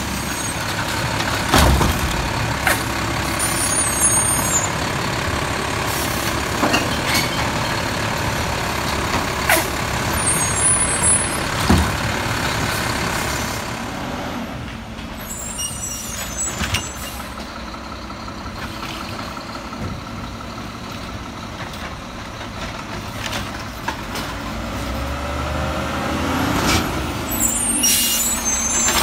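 Automated side-loader garbage trucks with the diesel engine running, the lifting arm at work with a few sharp clanks, and short air-brake hisses now and then. Partway through, the truck sound drops away, then a truck draws closer and gets louder near the end.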